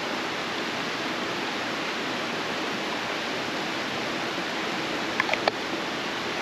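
Creek water rushing over rocks: a steady, even rush, with a few brief clicks about five seconds in.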